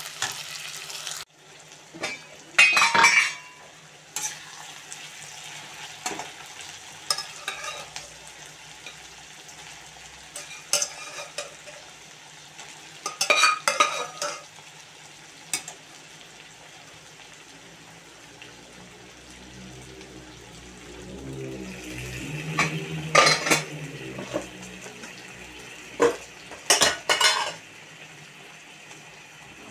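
Onions, tomatoes and green chillies sizzling in oil in a wok at first, then a perforated metal skimmer spoon scraping and clanking against the wok in several short bursts as the food is stirred.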